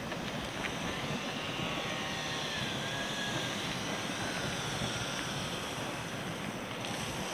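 Steady wind rumble buffeting the microphone as it moves along, with a faint wavering whine in the background.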